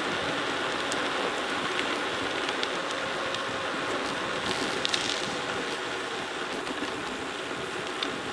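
Bike tyres rolling fast down a gravel forest road: a steady rushing crunch with scattered clicks and rattles.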